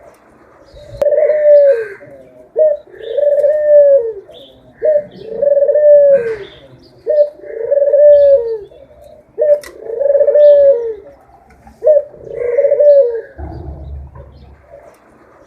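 A dove cooing over and over: about six repeated phrases, each a short note followed by a longer arching coo, coming roughly every two seconds. Faint chirps of small birds sound behind it.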